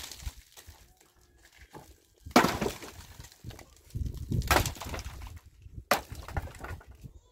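A few sharp knocks or cracks, the loudest just over two seconds in, with a low rumble between the later ones.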